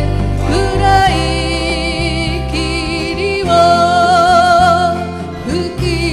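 A small acoustic folk band playing live: a woman sings long held notes with vibrato over strummed acoustic guitar, electric bass and hand drums.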